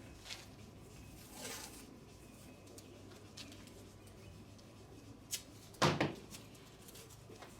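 Small handling sounds of bolts and plastic zip-lock bags: a rustle about a second and a half in, a click, then a sharp knock about six seconds in, the loudest sound. A low steady hum runs underneath.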